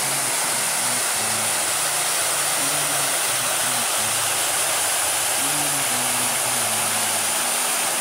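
Waterfall and rapids rushing over rock ledges, a steady dense rush of water. Beneath it, faint background music's bass notes change every half second or so.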